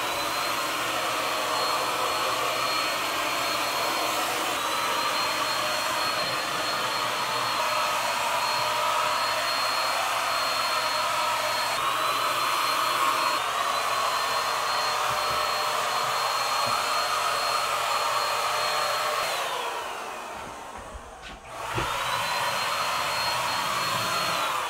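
Corded handheld electric paint sprayer running steadily with a high motor whine as it sprays paint. Late on the motor winds down and stops for a couple of seconds, then spins back up, and it winds down again at the very end.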